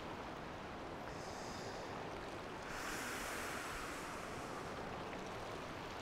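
Mountain river rushing over rocks and riffles, a steady, even wash of water noise that swells slightly about three seconds in.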